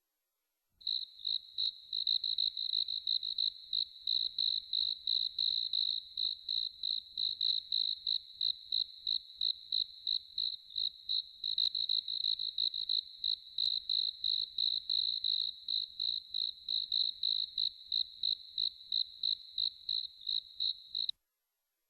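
Cricket chirping in a steady, even rhythm of about four high-pitched chirps a second, starting about a second in and cutting off suddenly near the end.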